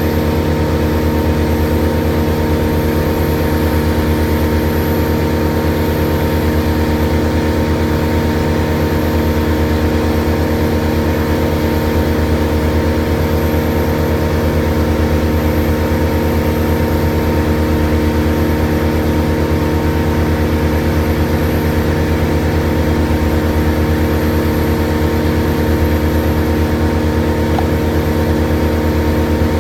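A large engine running steadily at one constant speed: a deep, even drone that does not rev up or down.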